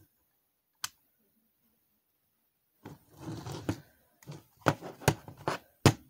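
Plastic clicks from an Xbox One controller being handled and its buttons pressed. There is a single sharp click, a pause, then some rustling and a quick run of clicks near the end.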